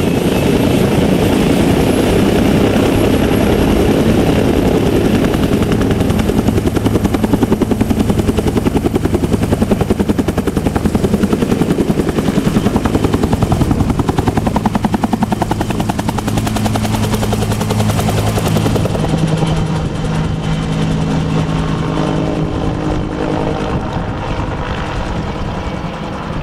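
A Bell Huey-type utility helicopter with a two-bladed main rotor lifts off and climbs overhead, loud with a steady rhythmic rotor beat and engine whine. Its sound grows a little thinner and quieter from about two-thirds of the way in as it gains height.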